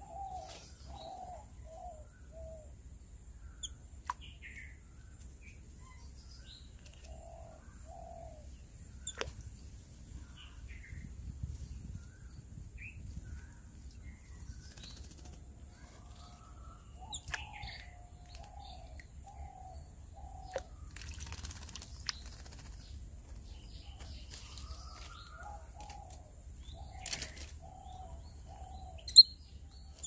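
Yellow-billed babblers bathing in a bird bath: splashes and brisk wing flaps in the water, the loudest near the end. Around them come short chirps and several runs of four to six low, evenly spaced hooting calls.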